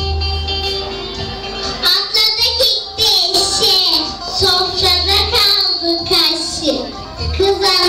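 Music with children singing; held instrumental notes open it, and the children's voices come in about two seconds in.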